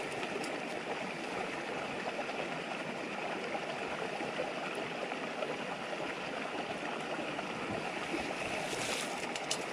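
Shallow river babbling steadily, with a few faint crackles from a campfire about half a second in and near the end.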